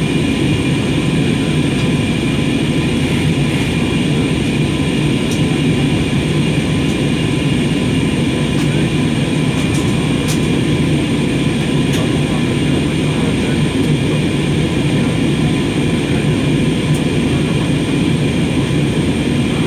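Steady cabin noise of an Airbus A320-family airliner in cruise: the jet engines and rushing air make a loud, even rumble, with a few faint steady whines above it.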